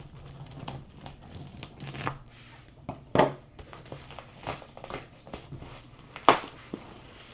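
Bubble-wrap packaging on a shipping tube crinkling and crackling as it is cut open with a pocket knife and pulled apart by hand, with two louder, sharper cracks about three and six seconds in.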